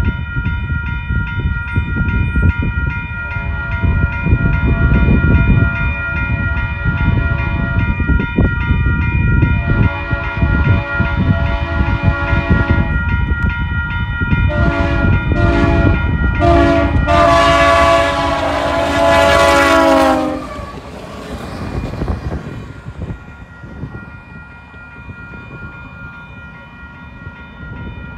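Grade-crossing bell ringing steadily over the low rumble of a passing train on the rails. About ten seconds in, a locomotive's multi-chime air horn sounds a long blast, two short ones and a final long blast that ends about twenty seconds in, and then the rumble fades.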